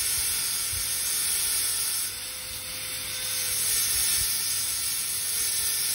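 High-speed air-turbine dental handpiece running with a steady high hiss as a diamond chamfer bur cuts the chamfer finishing line around a model tooth. The hiss eases a little about two seconds in and builds again.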